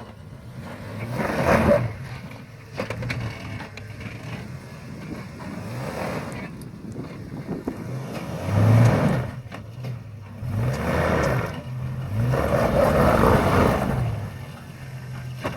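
Jeep Grand Cherokee ZJ making brake noise in about five loud noisy bursts of roughly a second each, over the steady run of the engine.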